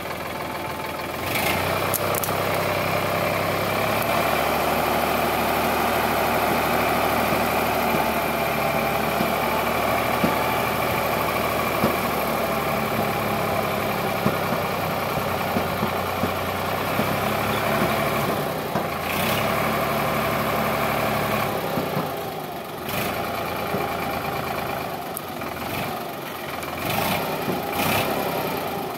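Sonalika DI 745 III tractor's three-cylinder diesel engine running steadily at working revs while its hydraulics raise the loaded tipping trolley. The engine note changes and becomes less even about two-thirds of the way through.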